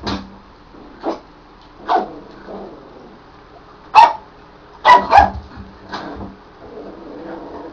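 Papillon puppy barking: a string of short, sharp barks at uneven intervals, the loudest about four seconds in, followed by a quick pair about a second later.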